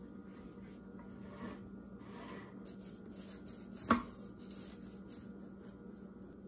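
Kitchen knife sawing through a loaf of banana bread with a dry rasping sound, with one sharp tap about four seconds in.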